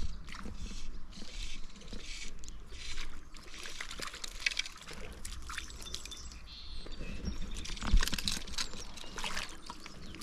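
Creek water trickling and splashing close by, in short irregular spatters. There is a single sharp knock about eight seconds in.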